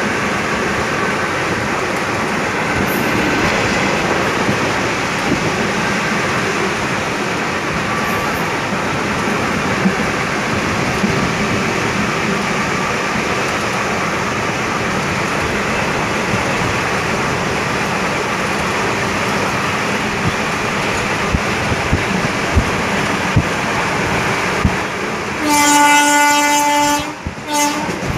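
Steady running noise of a moving passenger train, with occasional wheel clicks over the rail joints. Near the end a train horn sounds for about two seconds, followed by a short second toot.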